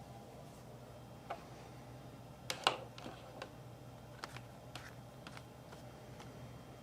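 Faint scattered clicks and taps of small hard objects being handled on a bench, about eight in all, loudest a couple of seconds in, over a low steady hum.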